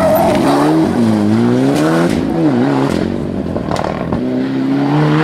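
Mitsubishi Lancer Evolution rally car's turbocharged four-cylinder engine revving hard as it accelerates away through a corner. Its pitch rises and falls several times, then climbs steadily near the end.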